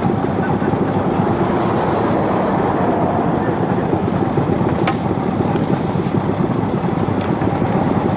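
Vintage stationary farm engine (hatsudouki), over 60 years old, running steadily with rapid, even firing pulses. A few short high hisses come about five and seven seconds in.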